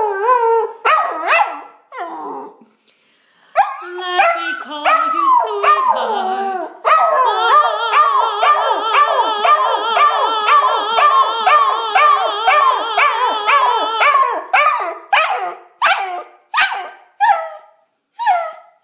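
Small black-and-tan dog howling with its head thrown back, in rising-and-falling wails. A short pause about three seconds in, a long unbroken howl from about seven seconds to fourteen, then shorter broken howls and yips toward the end.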